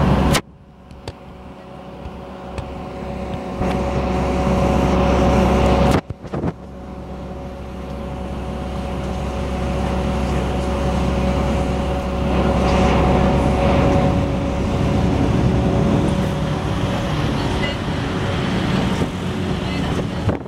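Volvo B8R bus's rear-mounted six-cylinder diesel engine heard from inside the passenger cabin: a low rumble with a steady hum, growing louder over several seconds as the bus moves off. The sound breaks off abruptly about half a second in and again about six seconds in.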